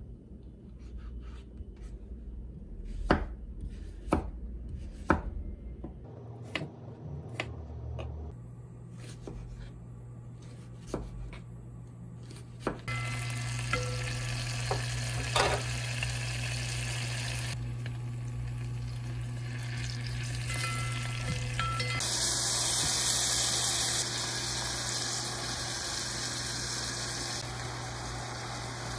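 Kitchen knife cutting a king oyster mushroom on a wooden cutting board: a string of sharp knocks, then oil sizzling steadily in a pot, growing louder about two-thirds of the way through.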